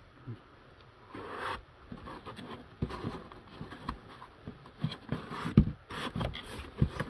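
Handling noise as a power adapter, cables and kit parts are moved about in a foam-lined cardboard box: irregular rubbing and scraping with many small knocks, starting about a second in, with the sharpest knock a little past three-quarters through.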